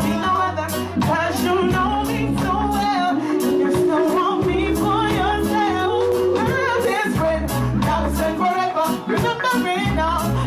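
Live band playing a slow song with a steady bass-and-drum beat, with held sung notes over it.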